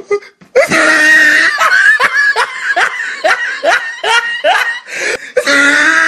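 A person laughing in a long run of short, falling 'ha' syllables, about three a second, starting about half a second in after a brief silence.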